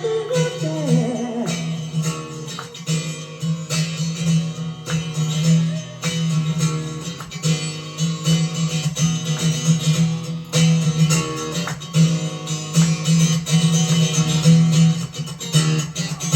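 Guild acoustic guitar played solo, a strummed and picked instrumental passage with a steady rhythm; a sung note trails off in the first second.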